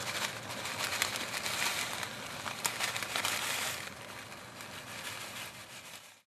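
Crinkling and crackling of a plastic bag of dry soup noodles as the noodles are poured into a pot of soup, with many small clicks, fading away to silence near the end.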